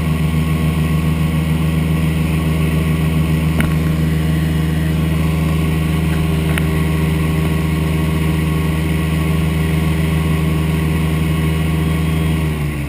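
Airboat's engine and propeller running steadily at speed, a loud deep drone. About twelve seconds in, the pitch falls as the engine throttles back.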